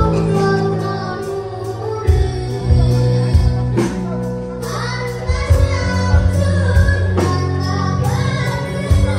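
Live band music with a singing voice: bass, drums and keyboard playing a steady beat under a sung melody.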